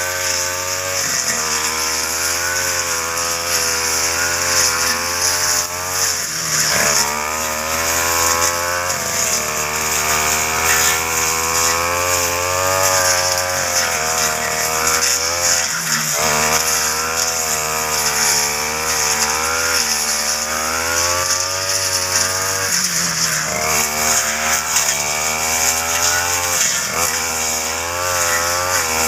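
Backpack brush cutter's two-stroke engine running at high revs, its pitch sagging and picking up again every few seconds as the blade cuts through ferns and grass.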